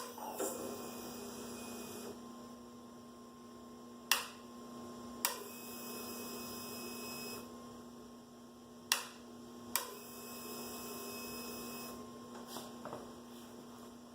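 Vehicle ignition being switched on and off several times before a start, heard as sharp clicks over a steady hum. Three of the clicks are each followed by about two seconds of faint high whirring, typical of the fuel pump priming.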